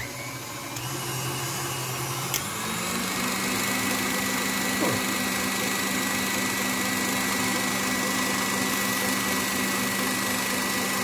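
KitchenAid stand mixer with a wire whip beating heavy cream. The motor winds up in speed over the first two to three seconds, then runs steady. The cream is whipped stiff and on its way to separating into butter.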